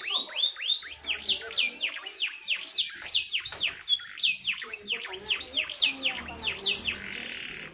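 Canary singing a fast, tightly packed song: a quick run of bright notes, each sweeping downward in pitch, several a second, with a brief buzzy trill near the end.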